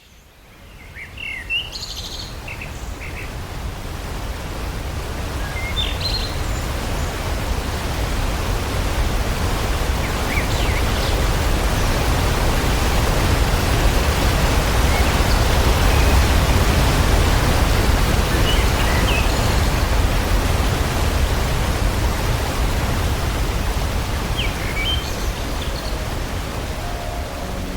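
Steady rush of a waterfall, fading in at the start and swelling gradually, with birds chirping briefly now and then over it.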